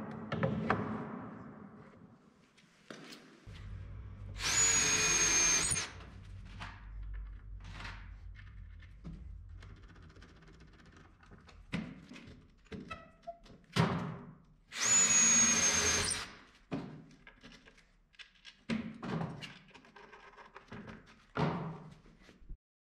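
Cordless drill driving screws into wooden boards in two runs of about a second and a half each, its motor giving a steady high whine. Sharp knocks of wood being handled and positioned come in between.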